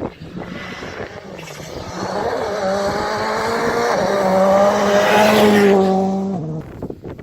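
Rally car engine at full throttle, approaching and growing louder to a peak about five to six seconds in, then the note drops and cuts off abruptly as the throttle is lifted.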